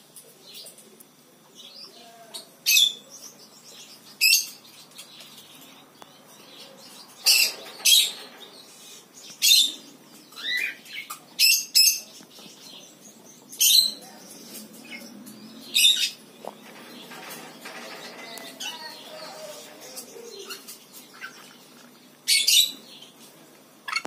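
Rainbow lorikeet giving short, shrill screeches, about ten of them at irregular intervals, with a lull of several seconds before a last one near the end.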